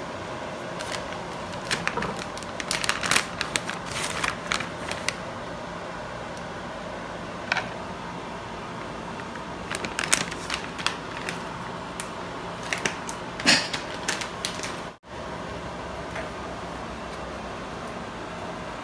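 Plastic bag of shredded cheese crinkling and rustling as it is handled and emptied into a clear plastic bowl, giving bursts of crisp crackles and light clicks over a steady background hum.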